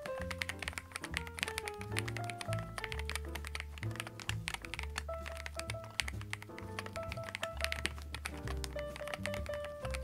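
Background music over a stream of quick keystroke clicks from typing on an EPOMAKER TH100 mechanical keyboard, which has an aluminium case and MMD Ice Cream POM switches. The music is the louder of the two.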